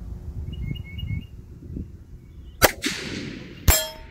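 Two loud rifle shots about a second apart, the second followed by a brief metallic ring.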